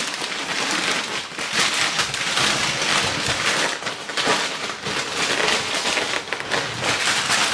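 Paper wrapping rustling and crinkling steadily as it is pulled off and bunched up by hand, a dense run of small crackles.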